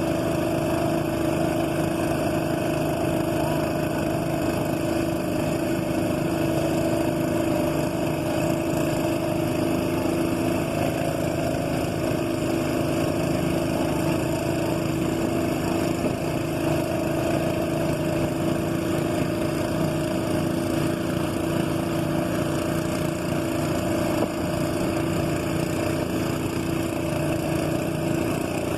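A boat's engine running steadily at constant speed, its pitch unchanging.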